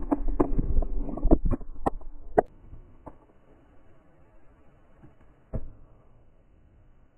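Skateboard wheels rolling on concrete with several sharp clacks of the board, then the rolling stops about two and a half seconds in. Later comes a single thud of the board landing.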